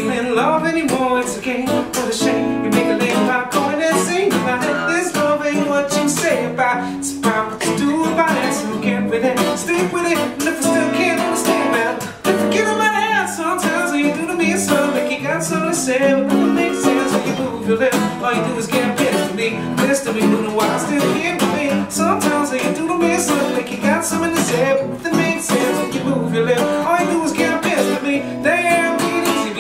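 Acoustic guitar strummed steadily, with a man singing a pop song over it.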